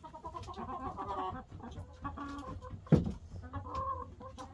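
Chickens clucking, several calls overlapping throughout, with one sharp thump about three seconds in.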